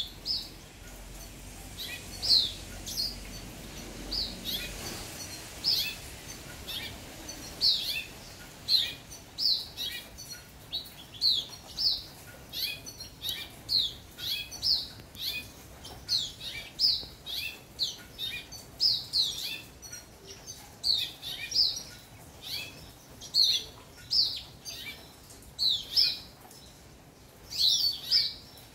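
Young house finch singing: a long run of short, high, down-sweeping notes, about one or two a second, with few breaks.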